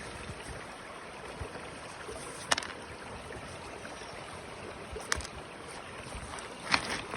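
Steady rush of flowing creek water, with three sharp clicks spread through it.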